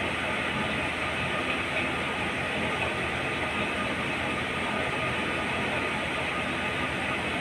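Metal-turning lathe running steadily, spinning a large steel hydraulic gland workpiece, with a constant machine drone and a faint steady whine.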